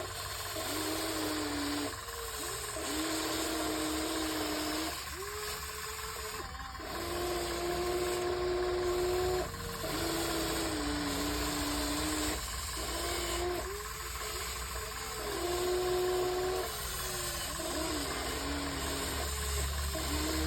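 RC excavator's small electric motors whining as it is worked, the pitch stepping up and down and cutting out and starting again every few seconds as different functions are run, over a steady hiss.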